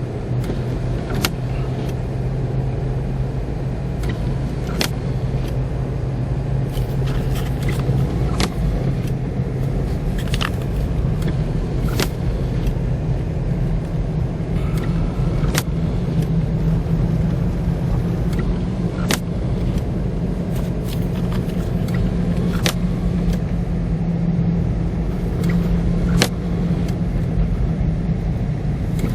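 A car running steadily with a low hum. Sharp clicks come about every three and a half seconds.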